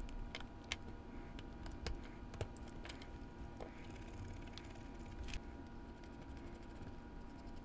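Faint, irregular small clicks and taps of an HO scale model locomotive's plastic truck being handled while its wheels are rubbed clean with a fiberglass pencil, over a faint steady hum.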